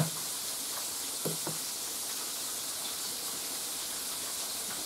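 Breaded round-steak cutlets frying in hot oil in a skillet: a steady, even sizzle.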